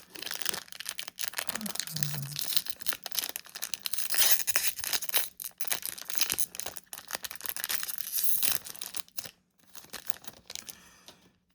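Trading-card pack wrapper being torn open and crinkled by hand: a dense crackling and tearing for about nine seconds, then quieter rustles and handling.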